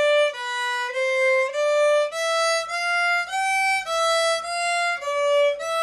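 Solo violin played with a bow: a slow melody of separate notes, about two a second, with a longer held note starting near the end.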